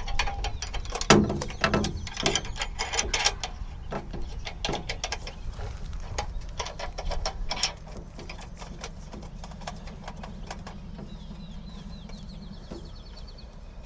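Gas fuel regulator being handled and screwed onto the fuel inlet of a Jetboil Genesis Basecamp stove: a busy series of clicks and knocks of metal and plastic parts, dying down about halfway, then near the end a quick even run of fine ratchet-like ticks as the fitting is threaded tight. Wind rumbles on the microphone underneath.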